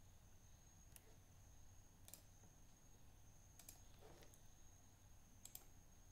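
Near silence with about five faint, sharp clicks of a computer being operated, spread a second or so apart, over room tone and a faint steady high whine.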